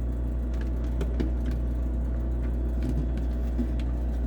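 Refrigerator running with a steady low hum, with a few faint light clicks from handling the parts.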